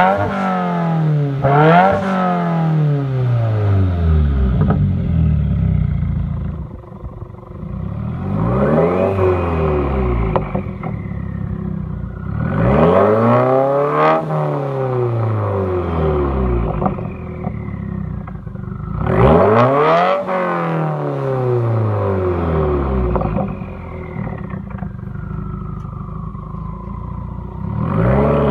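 2015 Subaru WRX's turbocharged FA20 flat-four, fitted with an aftermarket exhaust, revved in neutral about five times. Each rev climbs quickly and falls back slowly to idle, and a high whistle falls away after several of them.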